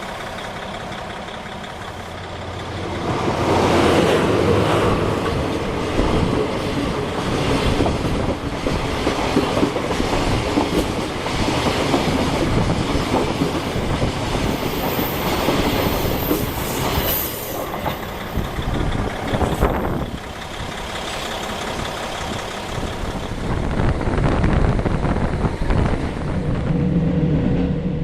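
KiHa 40 diesel railcar: its engine running steadily, then about three seconds in the sound swells into the loud rumble of the train running on the rails. A brief high squeal comes near the middle.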